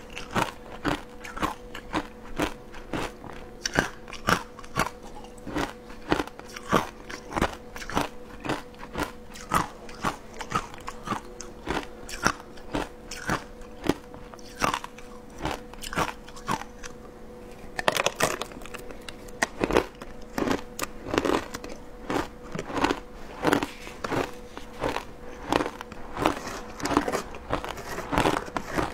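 Close-miked crunching and chewing of shaved ice, a fast, uneven run of crisp crunches as mouthfuls of the ice are bitten through.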